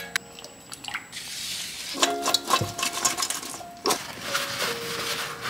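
Background music of held melody notes, with kitchen clatter under it: scattered clicks and knocks and a short hiss about a second in.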